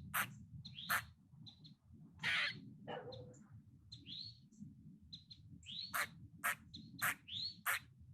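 Squirrel calling: a series of short, sharp 'kuk' chucks with a longer, harsher call a little over two seconds in, then a quicker run of four chucks near the end.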